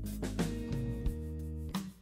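Background music: plucked notes over a steady low bass.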